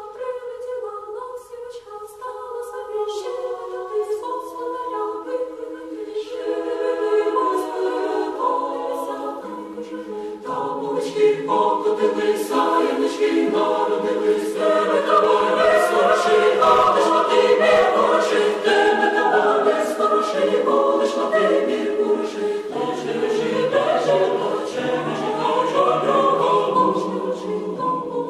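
An a cappella choir singing held, layered notes, starting with high voices and growing fuller and louder as lower voices join about ten seconds in.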